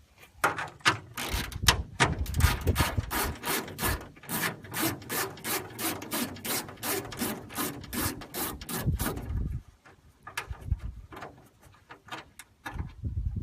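Rapid back-and-forth scraping strokes from a hand tool working the hood vent loose, about four a second. Near the end they turn into a few slower, scattered scrapes.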